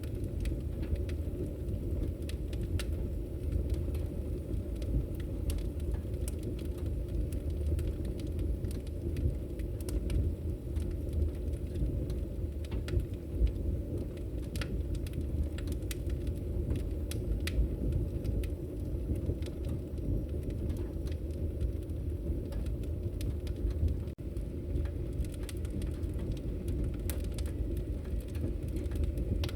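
Log fire burning with a steady low rumble of the flames and frequent small crackles and pops from the wood.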